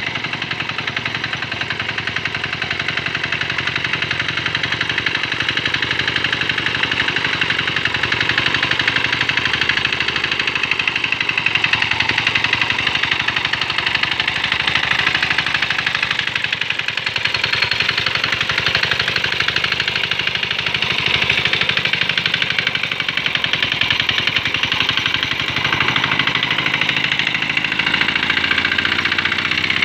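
Small diesel engine of a Quick Capung Metal hand tractor running steadily with a rapid, even knock.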